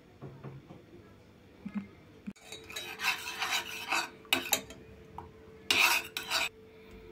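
Metal spoon stirring chocolate sauce in a stainless steel pot, scraping against the pot in several rasping strokes that start about two and a half seconds in.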